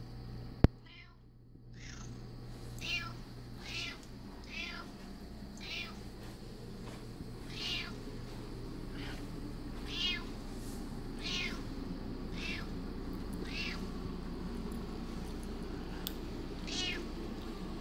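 Tabby house cat meowing insistently to be fed, about a dozen short meows roughly a second apart. A single sharp click about half a second in.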